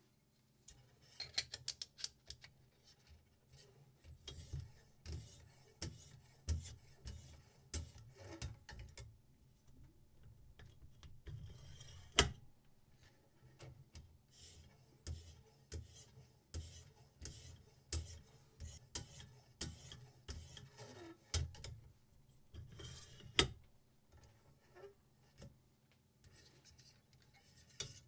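Steel knife blade scraping in many short, irregular strokes, with soft knocks and clicks between them.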